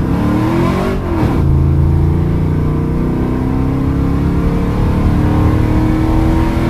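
A 2005 Dodge Ram's 5.7-litre Hemi V8 accelerating hard, heard from inside the cab. The engine note rises, dips briefly about a second in, then climbs steadily as the truck gathers speed.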